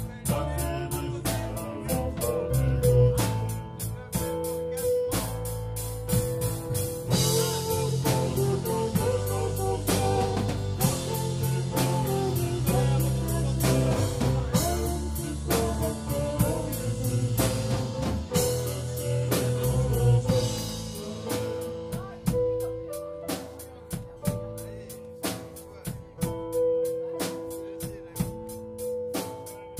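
Live band playing an instrumental passage: strummed acoustic guitar and drums over held notes. The playing grows fuller about seven seconds in and thins out again after about twenty seconds.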